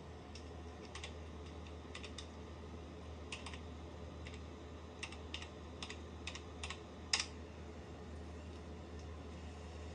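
Computer keyboard being typed on: separate key presses at an uneven pace, with one louder keystroke about seven seconds in, over a steady low hum.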